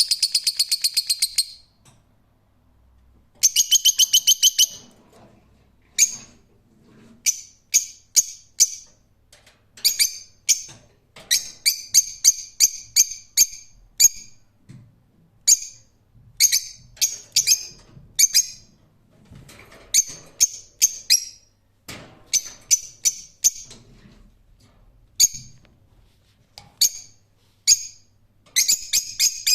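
Lovebird calling: shrill, rapid chattering trills near the start, then short sharp high chirps in quick clusters, on and off.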